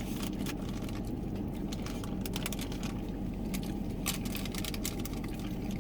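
Steady low hum of an idling vehicle with its air conditioning running, with many small scattered clicks and crinkles over it.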